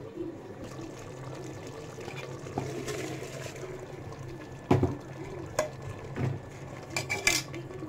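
Soaked basmati rice tipped into a pressure cooker onto wet masala, then a metal spoon knocking and scraping on the cooker several times as it spreads the rice; the knocks are the loudest sounds.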